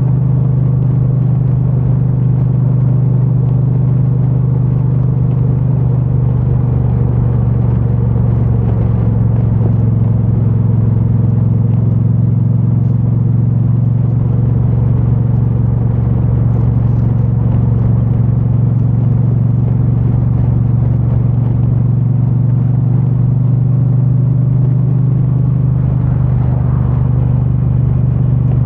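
2022 Triumph Bonneville T100's 900 cc parallel-twin engine running steadily through its stock exhaust while riding, heard from a mic carried in the rider's backpack.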